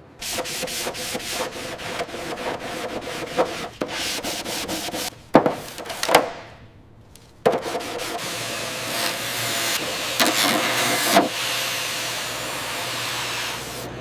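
Hand sanding: quick repeated rubbing strokes, then two sharp knocks about five and six seconds in, a short pause, and a steadier run of sanding.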